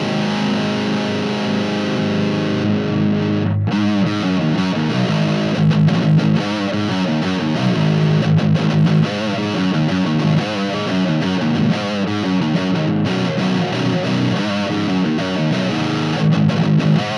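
Distorted electric guitar played through an amp and speaker cabinet: a held chord rings until about three and a half seconds in, then a fast riff of short, choppy notes follows.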